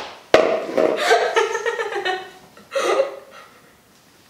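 Girl laughing hard in bursts for about three seconds, trailing off near the end.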